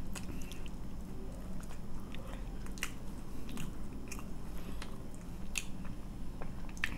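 Close-miked chewing of food, with irregular crisp clicks and small crunches from the mouth.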